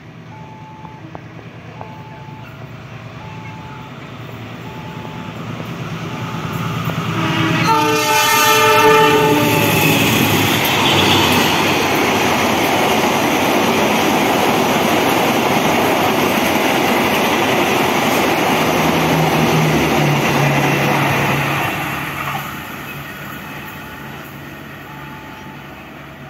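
Diesel-electric locomotive hauling a passenger train through a station: the locomotive sounds one horn blast about eight seconds in, then the train runs past with loud, steady wheel and carriage noise that fades over the last few seconds.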